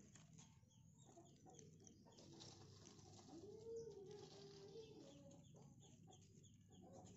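Faint rooster crowing once about three seconds in: a single call lasting about a second and a half that rises, holds and then falls, over otherwise near silence.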